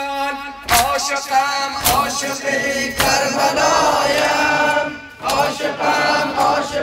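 A male reciter chanting a Persian noha, a Muharram mourning lament, through a microphone, with a group of male mourners chanting along. Sharp strikes come roughly once a second in time with the chant.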